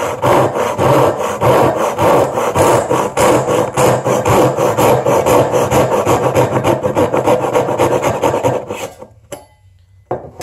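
Gyokucho Razor ryoba pull saw cutting a wooden board with its rip teeth: a fast, even run of rasping strokes that stops about nine seconds in.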